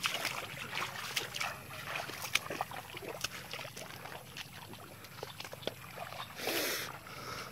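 Steps wading and splashing through shallow muddy water, with a longer, louder splash about six and a half seconds in.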